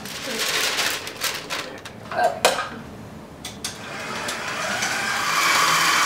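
Bowl-lift stand mixer with a wire whisk beating butter into Italian meringue for buttercream, with clicks and a sharp knock about two and a half seconds in. From about four seconds in the motor speeds up and runs louder and steady.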